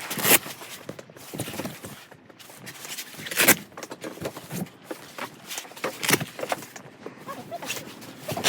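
Irregular rustling, scraping and knocks as the fabric windows of an ice-fishing tent are opened by hand.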